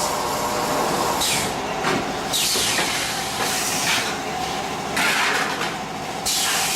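Dish-forming machine for solar water heater outer tank ends running, a steady mechanical noise broken by several bursts of high hissing, some falling in pitch.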